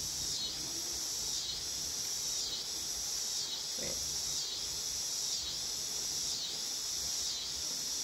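Insect chorus: a steady high-pitched trilling that dips and swells about once a second, over a faint background hiss.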